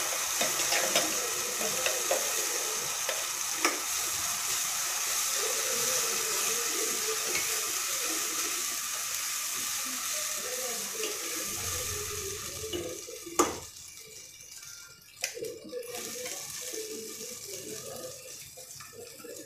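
Ground masala paste sizzling loudly in hot oil in a stainless steel kadai as it is stirred in with a spatula. The sizzle dies down about two-thirds of the way in, with a couple of sharp knocks of the spatula against the pan.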